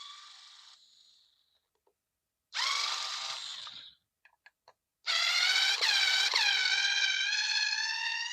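Small cordless electric screwdriver motor whining as it drives a long screw back out. It runs in two bursts: a short one that winds down in pitch, then a few light clicks, then a longer run that climbs slowly in pitch with two brief dips under load.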